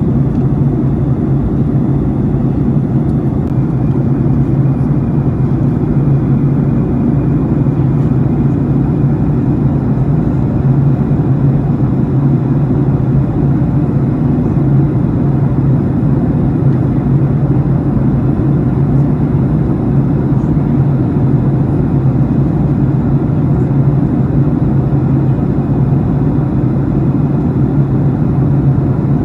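Jet airliner cabin noise in flight: a loud, steady low drone of engines and airflow, unchanging throughout.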